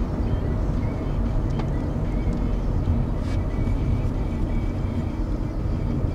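Car driving along a city road: steady rumble of road and engine noise.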